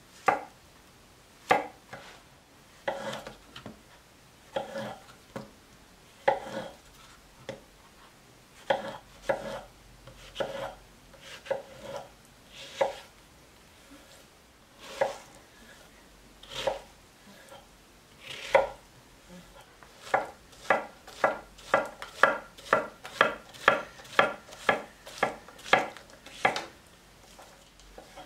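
A 240 mm SG2 Japanese gyuto slicing through zucchini, each stroke ending in a tap on an end-grain wooden cutting board. The cuts come slowly at first, one at a time about a second or more apart, then quicken to about two cuts a second near the end.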